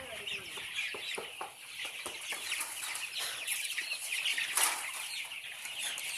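A large flock of chickens in a poultry shed, many birds clucking and cheeping at once in a continuous chatter, with a louder burst about four and a half seconds in.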